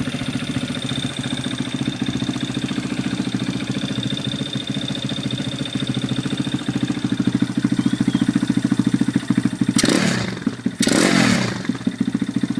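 Exhaust note of a Kawasaki KSR Striker motorcycle idling with an even, pulsing beat, then two quick throttle blips near the end, each revving up and dropping back to idle.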